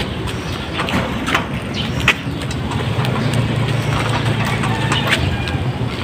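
Steady street noise with a low vehicle engine hum that comes up about halfway through, and a few scattered light taps.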